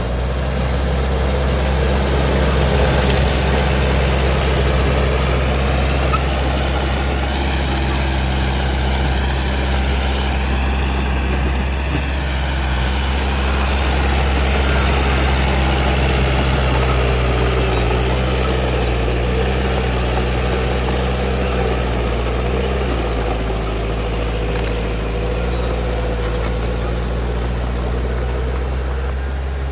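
Heavy diesel engine of construction machinery running steadily, its pitch shifting slightly with load.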